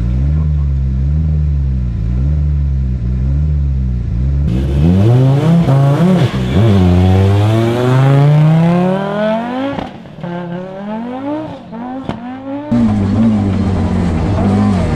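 Audi Sport quattro S1's turbocharged five-cylinder rally engine being blipped at low revs, then revving up in long rising pulls as the car accelerates. After a drop in level it goes back to short blips of the throttle near the end.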